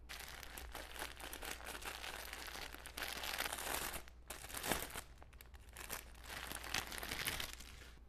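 Thin clear plastic bag crinkling and crackling as a foam bread-loaf squishy toy is handled and unwrapped from it. The crinkling comes in uneven bursts, with a short lull about four seconds in and another about a second later.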